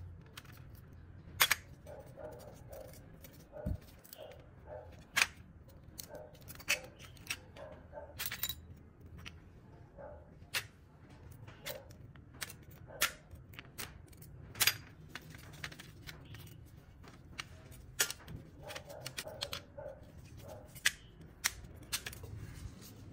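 Irregular sharp metallic clicks and taps as small steel planetary gears are worked out of a cordless drill's greasy gearbox housing with metal tweezers, the metal parts knocking against the housing and the steel tray.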